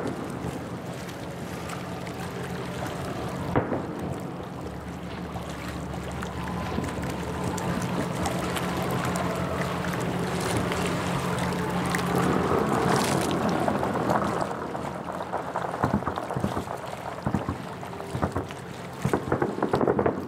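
Fireworks going off over water: a sharp bang at the start and another about three and a half seconds in, a rising hiss around the middle, then a rapid run of crackling pops near the end. A steady low hum runs underneath.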